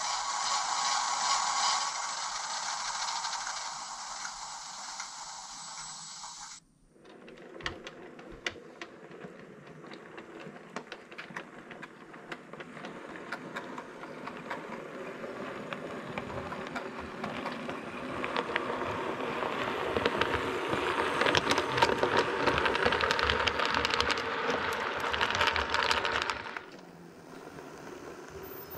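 OO gauge model trains running: a steady motor whirr with fast clicking and rattling of wheels on the track, growing louder as a train nears. The sound breaks off suddenly about a quarter of the way in and again near the end.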